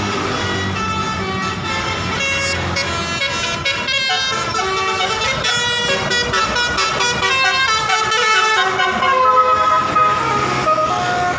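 Bus 'telolet' multi-tone horn, a Basuri-type musical air horn, playing a tune of held notes that step up and down in pitch, over the bus engine running.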